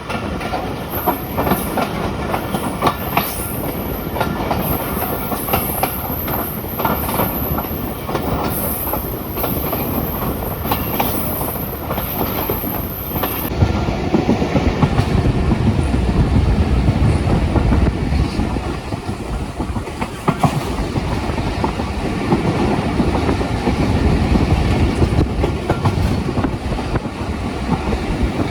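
Passenger train running at speed, wheels clattering over the rail joints with a steady rumble, heard from on board. A thin high whine stops about halfway through and the low rumble grows louder after it.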